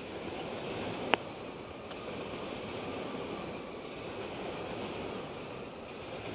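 Freight train cars rolling across a rail bridge, heard across open water as a steady rumble mixed with wind and lapping water. A single sharp click about a second in, and a fainter one shortly after.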